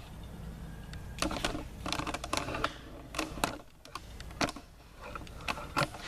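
Handling noise of a loose camera mount being readjusted: irregular clicks and clatters starting about a second in, over a low steady hum.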